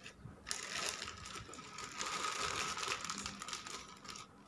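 Plastic courier mailer bag crinkling and rustling as it is handled and lifted.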